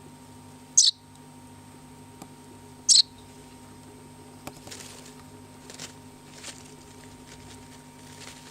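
Baby swallow giving two short, loud, high chirps about two seconds apart, followed by faint scattered ticks and soft rustles.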